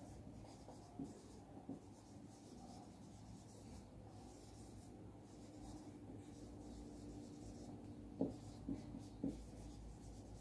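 Faint sound of handwriting: short scratching strokes, with a few soft taps near the end.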